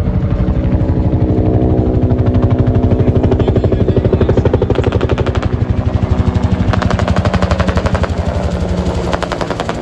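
UH-1 Huey helicopter's two-bladed main rotor making its rapid, even blade slap, about ten beats a second, as it flies low and close past.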